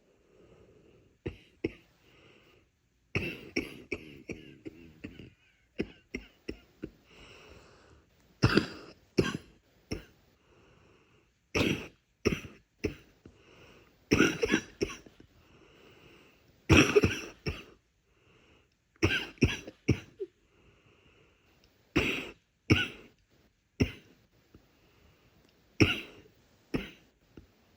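A person coughing with a congested, chesty cough, in short bouts of one to three coughs coming every second or two.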